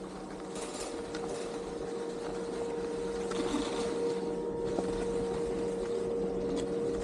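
Anchor (T-bar) ski lift running with a steady mechanical hum, over the hiss of skis sliding on groomed snow while being towed uphill. The sound grows slightly louder toward the end, with a few faint clicks.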